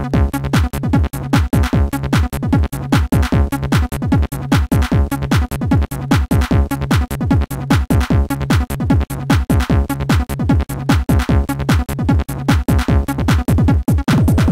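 Techno music from an Amiga demo soundtrack: a fast, steady beat of deep kick drums, each dropping in pitch, under sustained synth tones.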